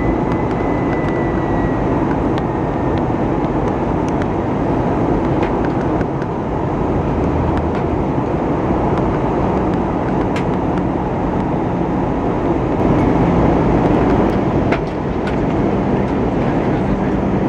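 Airbus A320 cabin noise in flight, heard from the front row: a steady rush of airflow and engine drone.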